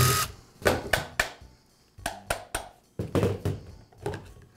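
A cordless driver stops just at the start. Then comes a scattered series of short clicks and knocks: hand tools and metal parts on a metal workbench as a screwdriver pries open the aluminium gearbox housing of a reciprocating saw.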